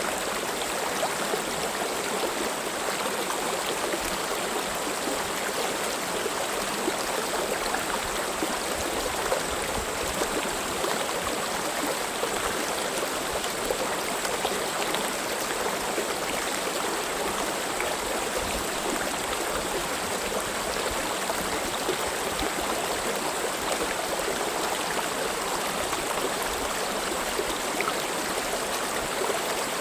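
Mountain valley stream flowing over rocks, a steady rushing and babbling of water.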